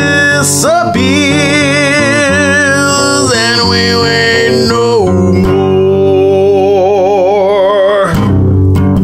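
A man singing long held notes with a wide vibrato over a strummed acoustic guitar. The voice stops about eight seconds in and the guitar strumming carries on.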